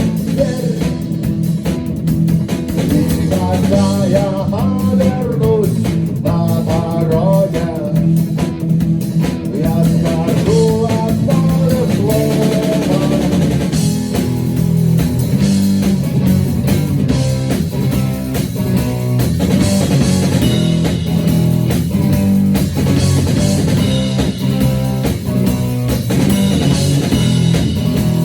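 Rock band playing an instrumental section of a song: a guitar melody over bass and drums with a steady beat.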